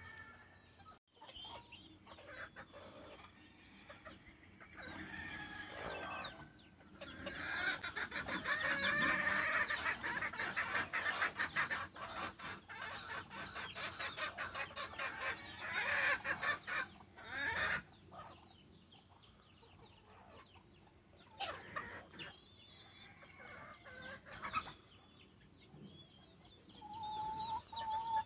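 Gamefowl chickens clucking and crowing, with a loud, dense stretch of rapid calls through the middle and a short pitched call near the end.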